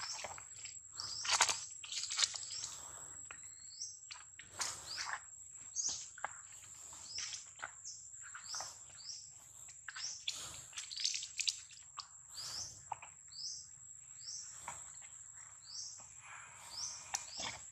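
Baby long-tailed macaque crying for its mother: a run of short, high-pitched squeals, about one a second, each a quick sweep in pitch.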